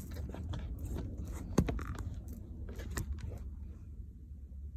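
Handling noise of a phone camera being set up on a stand: a run of clicks, taps and rattles, with one sharp knock about a second and a half in, over a steady low hum.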